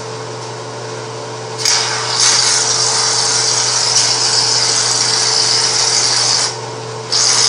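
Aerosol can of shaving cream being sprayed out, hissing steadily for about five seconds, then stopping and hissing again briefly near the end.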